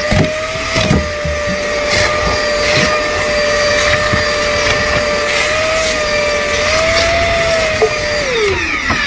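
Stainless-steel wet/dry canister vacuum running with a steady whine and occasional clicks as the hose works. Near the end it is switched off and the whine falls in pitch as the motor winds down.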